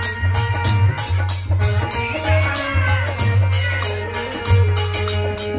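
Live Indian folk ensemble music: harmonium chords and a dholak drum beating a steady rhythm, with small brass hand cymbals (jhal) clashing on the beat and voices singing.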